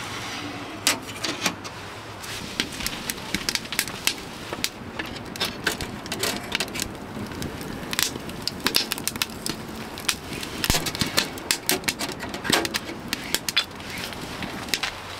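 Split firewood crackling and popping as it burns in a small metal tent wood stove, with sharp, irregular pops.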